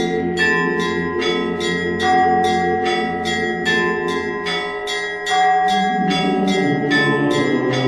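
Church bells ringing a quick, even peal, about three strokes a second, each stroke ringing on over a lower layer of deeper bells.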